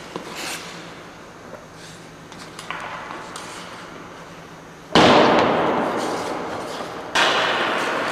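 Ice-hockey rink sounds: faint scraping and small taps of skates and sticks on the ice, then two sudden loud noises about five and seven seconds in, each dying away over a second or two.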